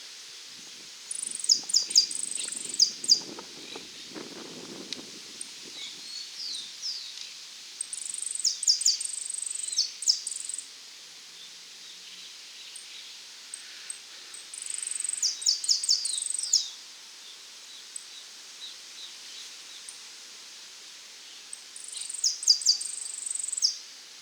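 Saffron finch (jilguero dorado) singing: four bright, high song phrases of about two seconds each, spaced six to seven seconds apart, with softer chirps between them. A low rustle comes in the first few seconds.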